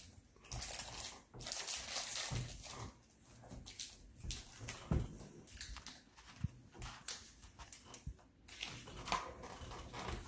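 Foil Pokémon booster pack wrapper crinkling and trading cards rustling and sliding as they are handled, with irregular crackling rustles and a few soft clicks.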